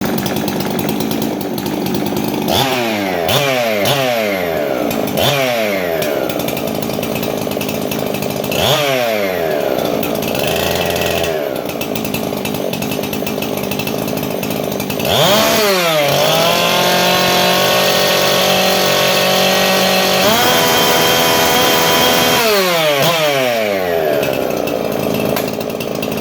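Husqvarna 372 XPW two-stroke chainsaw with a ported 75cc big-block engine being revved: a string of quick throttle blips, then held high for about seven seconds with a step up in pitch partway through, then falling back with more blips near the end.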